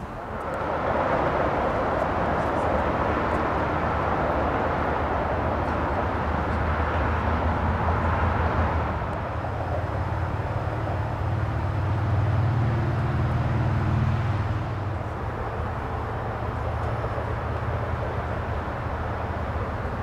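Engine noise passing by: a steady rush that sets in about half a second in, deepens into a low drone near the middle, and then eases off.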